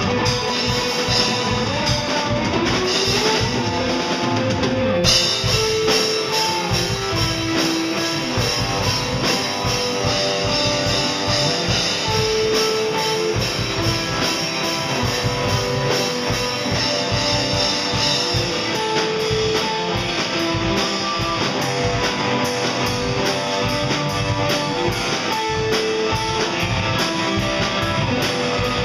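Live rock band playing an instrumental passage: electric guitars over a drum kit. A guitar note slides up in pitch about two seconds in, and the band's sound turns brighter and fuller about five seconds in.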